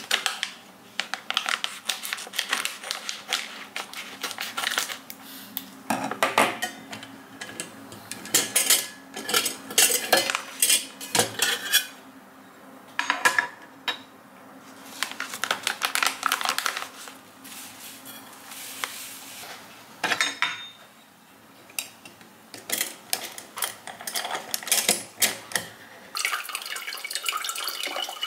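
Metal clinks and scrapes of a scoop against a stainless-steel coffee canister with a clamp lid, as coffee is scooped out, in bursts with short pauses.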